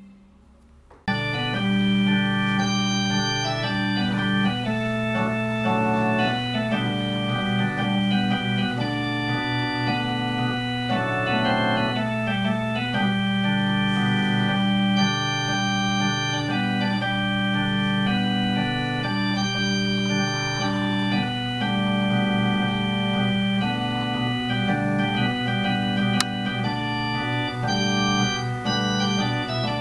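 Improvised electronic keyboard music with long held chords and a melody over them, starting about a second in after a brief silence.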